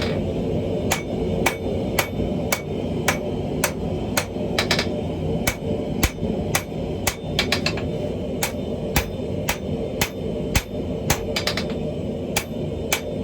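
Hand hammer striking hot steel on an anvil in a steady forging rhythm, about two ringing blows a second, some doubled, drawing out a chain Damascus billet. A continuous low rumble runs underneath.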